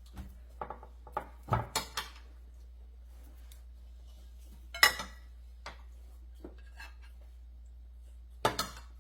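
Plates and cutlery clinking and knocking during a meal: scattered short clinks, a cluster in the first two seconds, the loudest about five seconds in, and a quick pair near the end.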